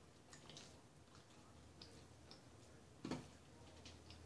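Faint mouth clicks and chewing of people eating pizza, with one brief louder sound about three seconds in.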